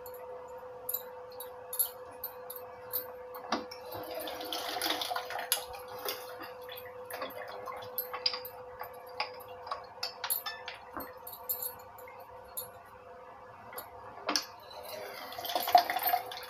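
Metal hand-lever citrus press squeezing sweet lime halves: scattered clicks and knocks of the lever and press cup, with two longer spells of squeezing and juice splashing, about four seconds in and near the end. A faint steady hum runs underneath.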